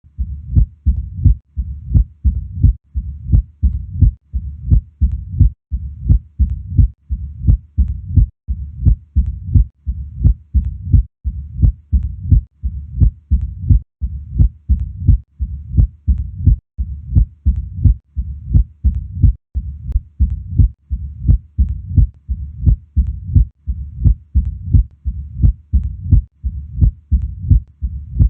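Human heart sounds from cardiac auscultation: low, dull beats repeating in a steady, regular rhythm.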